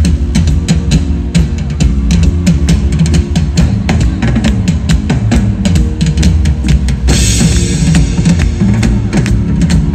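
Live rock drum breakdown on two drum kits played together through the concert PA: fast, steady kick, snare and tom hits over a heavy low end, with a crash cymbal washing in about seven seconds in.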